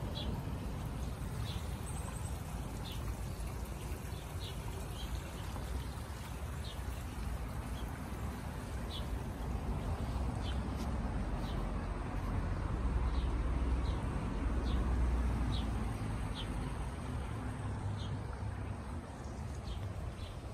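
Short high bird chirps, one about every second or so, over a steady low rumble.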